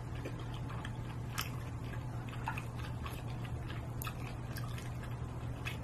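Soft mouth sounds of someone chewing grilled squid stuffed with garlic chives, with a few small scattered clicks, over a steady low hum.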